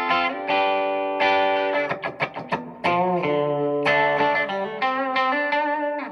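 Clean electric guitar through a Marshall clean amp with the Donner Verb Square Evolution+ pedal on its room reverb setting: ringing chords and single notes, a flurry of quick strokes about two seconds in, and the last chord dying away in the reverb tail near the end.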